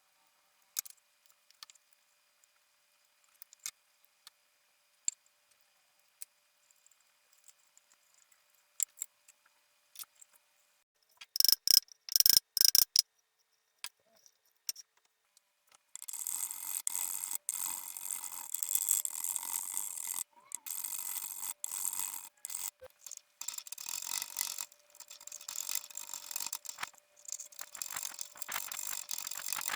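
Hand woodworking on a setar's wooden parts: scattered clicks and taps of tools and wood being handled, with a loud short clatter before the middle. About halfway in, steady stroke-by-stroke scraping or rasping of wood begins, with brief pauses between strokes.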